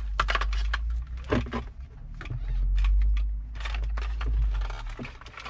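Plastic wiring-harness connectors and bundled wires being handled, giving a string of short clicks and rustles over a low rumble that fades out about five seconds in.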